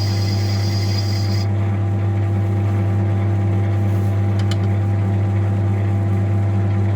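Metal lathe running steadily with a low motor hum, boring out the combustion bowl of a VW 1.9 TDI PD aluminium piston held in a 4-jaw chuck. For the first second and a half a high hiss with a thin whistle sits over the hum, and a couple of brief clicks come about halfway through.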